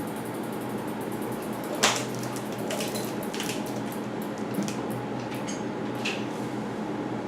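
Scattered light metallic clicks and taps of a mountain-bike chain and drivetrain being handled, the sharpest about two seconds in, over a steady hum.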